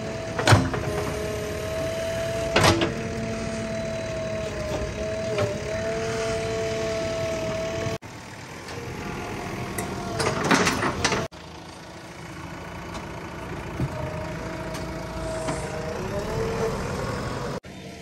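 JCB 3DX backhoe loader's diesel engine running steadily under load with a held whine, punctuated by sharp metallic clanks: one about half a second in, another near two and a half seconds, and a cluster around ten to eleven seconds. The sound breaks off and changes abruptly three times.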